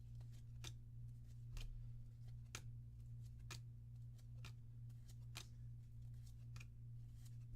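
Force of Will trading cards being flipped through one at a time, a short snap of card against card about once a second, over a steady low hum.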